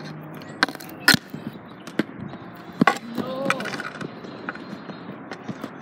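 Street hockey on asphalt: a stick and ball striking, four sharp cracks in the first three seconds.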